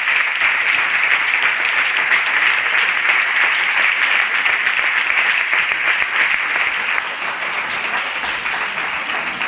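Congregation applauding: dense, sustained clapping that eases off slightly near the end.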